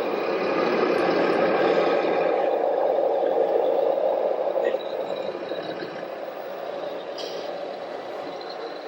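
Scale RC model vehicle running, an engine-like drone with a steady pitch. It is loud for about the first four and a half seconds, then drops to a quieter running level.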